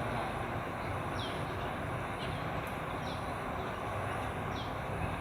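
Steady outdoor background noise, like distant traffic hum. A short, high, falling chirp repeats about once a second.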